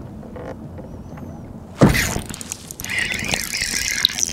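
A sharp knock about two seconds in, then a spinning reel cranked steadily, its gears whirring and ticking, as a hooked fish is wound in on a bent rod.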